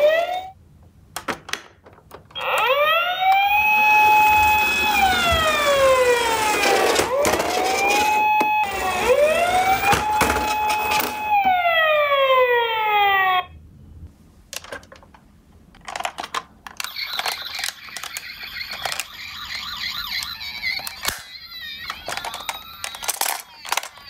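Toy ambulance's electronic siren wailing, its pitch rising to a held high note and falling again about three times before it cuts off abruptly. Afterwards there are quieter plastic clicks and rattles.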